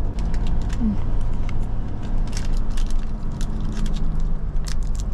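Bus driving on the road, heard from inside: a steady low rumble with many scattered clicks and rattles.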